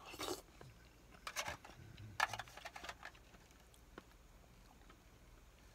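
A person slurping hot-pot broth and noodles from a foil tray: three short slurps within the first three seconds.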